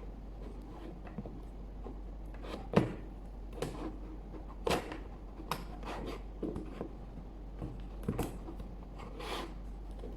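Plastic Lego Technic parts being handled and fitted back together: irregular sharp clicks and rubbing of plastic pieces, over a low steady hum.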